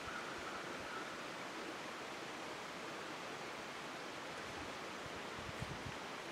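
Steady, even hiss of outdoor background noise, with a few faint low thumps near the end.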